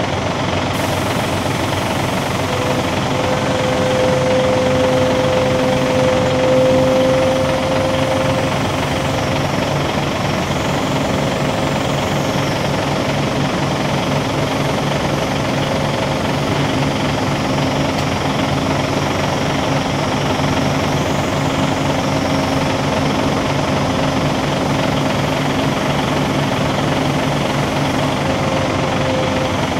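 Heavy diesel engine of dockside lifting or haulage machinery running steadily under load, a low pulsing drone that swells a little about five to seven seconds in.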